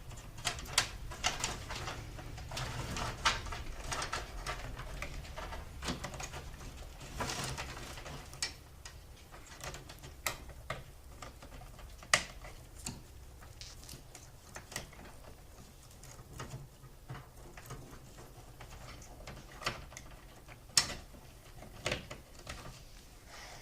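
Scattered clicks, taps and rustles of computer cables and connectors being handled and plugged in inside a PC case, busier in the first several seconds, over a low steady hum.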